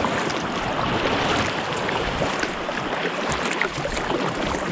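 Water washing and splashing around a kayak being paddled in toward the shore, a steady wash with many small irregular splashes.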